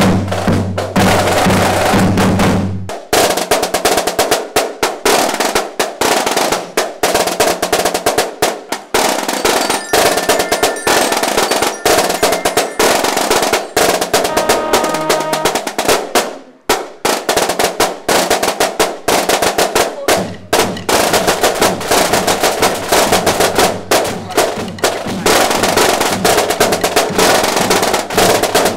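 Marching band percussion playing: snare drums beating fast, dense rolls and patterns, with a few ringing glockenspiel notes around the middle and a low steady tone under the drumming at the start and in the second half.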